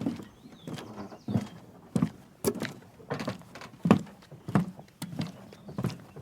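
Footsteps in tennis shoes walking on a wooden boat dock: light wooden clunks of the boards underfoot, a little under two steps a second.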